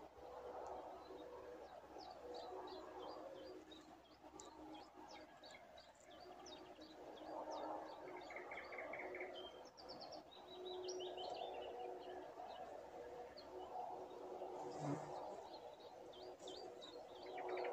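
Small songbirds chirping and twittering in quick runs of short, high notes, over a faint steady background hum. About fifteen seconds in there is a brief low sound.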